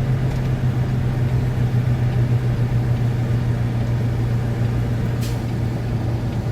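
Semi truck's diesel engine heard from inside the cab, a steady low drone as the truck is driven slowly through a turn, with a single brief click about five seconds in.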